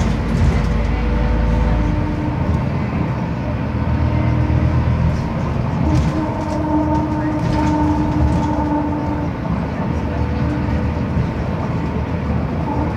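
Scania CN270UB city bus heard from inside the passenger cabin while driving: engine and drivetrain running steadily with a steady whine over road and tyre noise. The deepest rumble eases about two seconds in.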